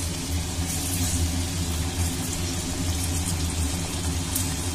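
Potato-and-semolina dough pieces deep-frying in a kadhai of hot oil with a steady sizzle, over a steady low hum.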